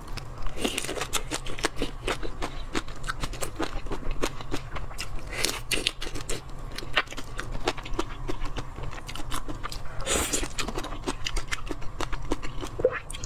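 Close-miked eating of a large marinated black tiger shrimp: many small wet clicks and crackles of lips, shell and flesh as it is bitten and sucked, with three louder crunches about a second, five and a half seconds and ten seconds in.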